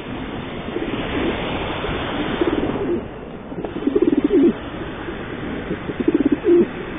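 Racing pigeons cooing in transport crates close to the microphone: a string of throbbing coos, the loudest about four seconds in and again near the end. A steady hiss runs under the first few seconds, then drops away.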